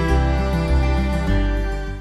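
Gentle background music with a steady bass line, fading out near the end.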